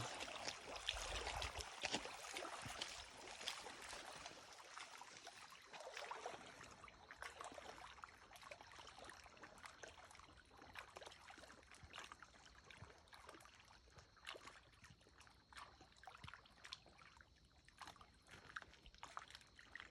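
Faint water lapping and trickling at the water's edge, a dense crackle of small ticks that is busiest in the first few seconds and then thins out. A thin steady high tone comes in about six seconds in and holds.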